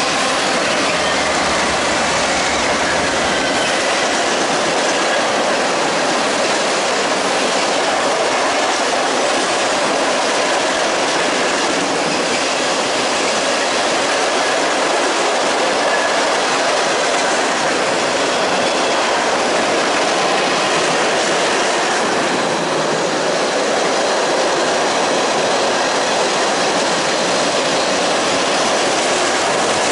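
Two freight trains passing each other on adjacent tracks: steel wheels rolling and clattering over the rails in a loud, steady rush, with a faint high wheel squeal now and then. A low diesel engine hum sits under it in the first few seconds as the lead Norfolk Southern GE locomotives go by.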